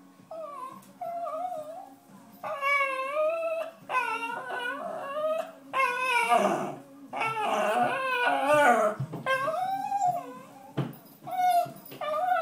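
Cairn terrier crying in a string of high, wavering whimpers and whines, begging for pizza. The cries come one after another with short breaks, and a couple in the middle are louder and rougher.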